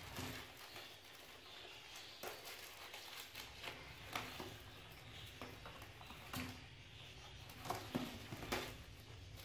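Kittens scrambling about on a foil bubble-insulation liner in a plastic crate: faint, irregular crinkles, taps and scratches from their paws and bodies.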